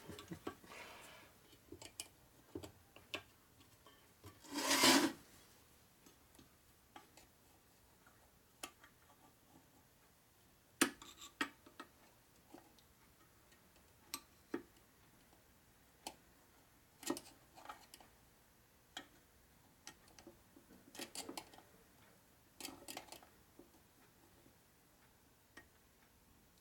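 A screwdriver tip prying at a stubborn snap ring in an aluminium motorcycle engine case: scattered small metal clicks and scrapes, with a longer scrape about five seconds in and a few more near the end.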